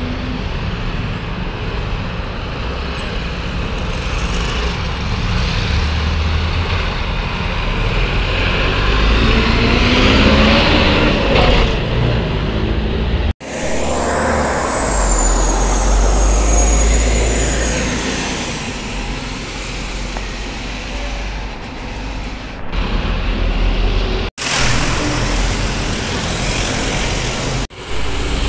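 Diesel city buses and street traffic passing, engines running and pulling away under load. The sound breaks off abruptly several times.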